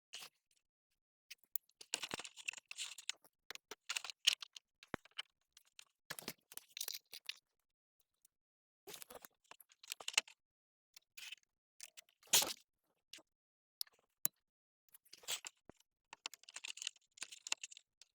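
Intermittent handling noises: short bouts of scraping and rustling with sharp clicks, stopping and starting irregularly.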